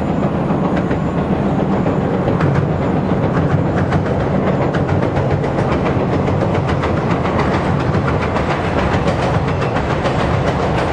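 JR 115 series electric train approaching over a steel girder bridge: a steady loud rumble, with wheel clicks that start about two seconds in and come more often toward the end.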